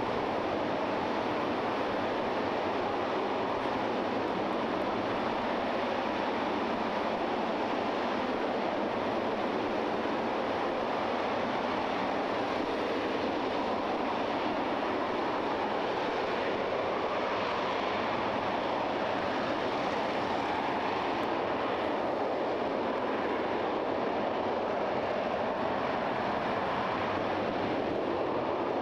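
RS-25 liquid-hydrogen/liquid-oxygen rocket engine firing on a test stand during a hot-fire test: a steady, unbroken rush of noise.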